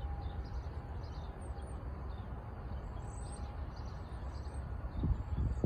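Outdoor ambience: a steady low rumble with small birds chirping in short high notes throughout, and a few low thuds about five seconds in.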